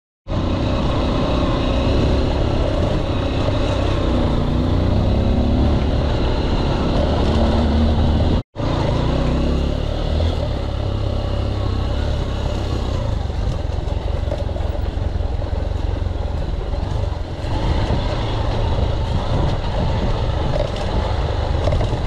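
Motorcycle engine running steadily under way, with some rising and falling in pitch. The sound cuts out for a moment about eight seconds in.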